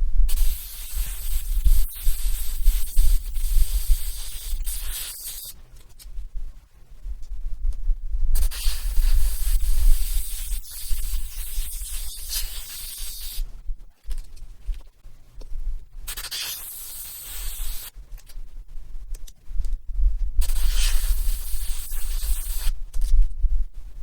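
Airbrush spraying paint in several on-off bursts of hiss, the longest about five seconds, over a steady low hum.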